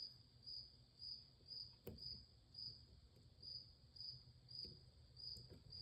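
A cricket chirping steadily, about two chirps a second, with a single faint click about two seconds in.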